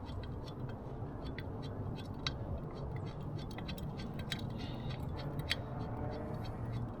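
Light, irregular metallic clicks and ticks as a 12 mm bolt is started by hand into the aluminium lower-unit housing of an outboard motor, over a steady low hum.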